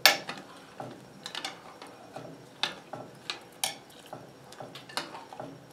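Glass saucepan clinking and scraping on the cast-iron top of a wood cookstove as it is shifted over to a hotter spot: scattered sharp clinks, the loudest right at the start.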